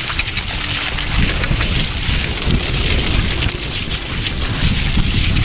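Wind buffeting the microphone at speed, over a steady hiss of cross-country skis gliding fast along an icy set track on a downhill.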